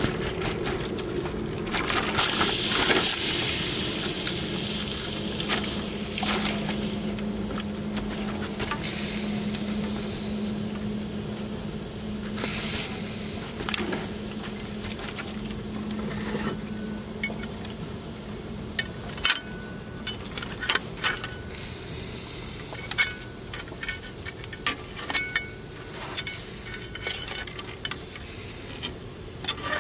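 Food sizzling in a hot pan: a loud sizzle starts about two seconds in and slowly dies down. In the second half come a series of light clinks of utensils against cookware.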